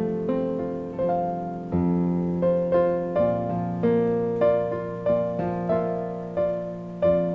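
Piano played slowly and softly, sustained chords and a simple melody with notes struck and left to ring.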